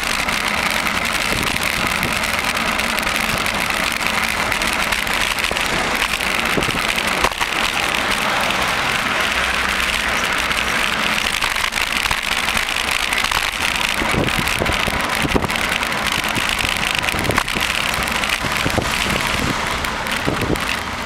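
Steady rushing road and wind noise of a bicycle riding through city traffic, with a few short knocks along the way.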